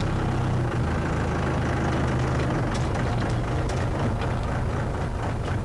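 An engine idling with a low, steady rumble.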